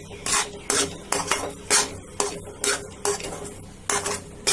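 Slotted metal spatula scraping and knocking against a metal pan while stirring a thick, dry mixture of grated coconut and ground cashews and almonds, about two uneven strokes a second.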